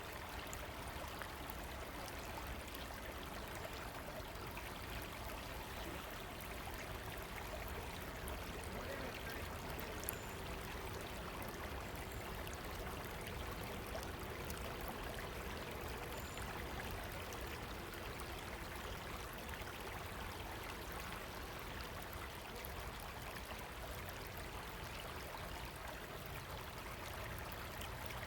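River water running steadily, an even, continuous rush of flowing water, with one brief click about ten seconds in.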